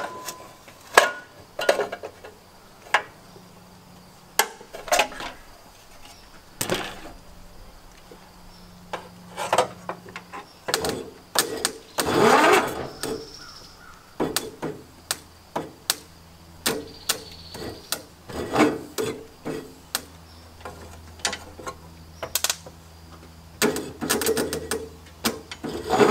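Irregular metallic clicks, knocks and clanks of hand tools and parts being handled while working on a small engine, with a longer, louder scraping burst about twelve seconds in.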